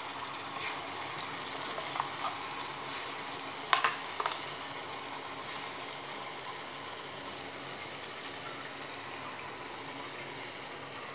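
Red chilli-tomato chutney paste sizzling steadily in hot oil as it is spooned into the pan. There are a couple of sharp clicks a little under four seconds in.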